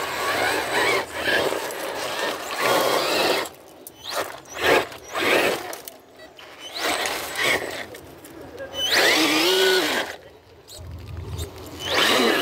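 Axial Ryft RBX10 1/10-scale RC rock crawler's electric motor and geared drivetrain whining in repeated bursts as it climbs over boulders, the pitch rising and falling with the throttle.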